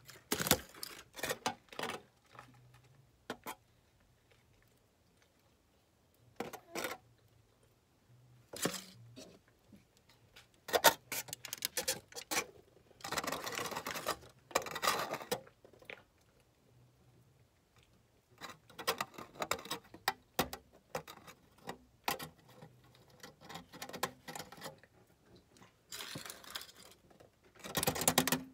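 Cornstarch chunks crunching and squeaking close to the microphone, in irregular bursts of crackling. The bursts are separated by pauses of a second or more, with a longer dense stretch of crunching near the middle. The aluminum foil holding the chunks crinkles along with them.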